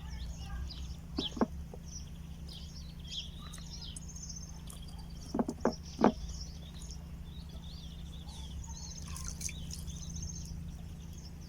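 Small birds chirping and twittering throughout over a steady low rumble, with a few sharp knocks: one about a second in and three close together around the middle.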